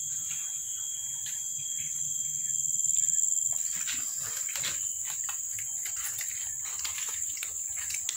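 Steady high-pitched drone of an outdoor insect chorus, with short scattered clicks and scuffs from about halfway through.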